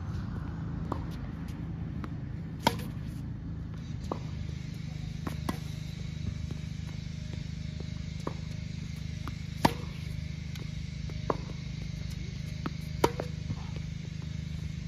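Tennis rally: sharp pops of a Babolat Pure Aero racket's strings striking the ball on close-by topspin groundstrokes, three times, a few seconds apart. Fainter hits and ball bounces come in between. A steady low hum runs underneath.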